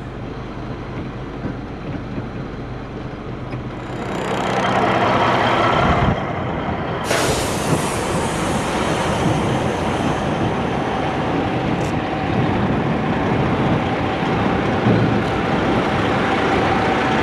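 Heavy-truck diesel engine, the Caterpillar 3406B in a 1984 Peterbilt 362 cabover, idling steadily. Around four seconds in it gets louder and noisier, and about seven seconds in a sudden rush of hiss comes in before settling into a steady noisy hum.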